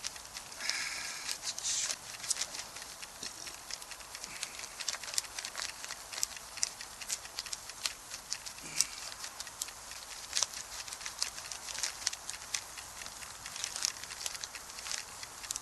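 Wood campfire crackling, with many small irregular pops and snaps over a faint hiss.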